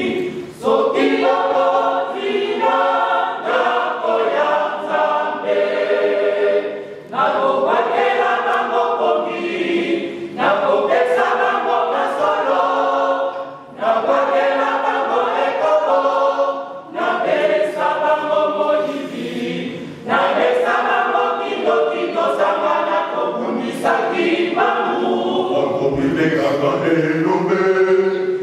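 Mixed choir of men's and women's voices singing a hymn a cappella, in phrases a few seconds long with short breaks for breath between them.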